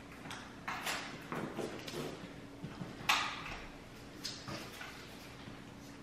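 Painter's tape being handled over a wooden canvas frame: several short rustles and light knocks as the tape is pulled taut and pressed down, the loudest about three seconds in.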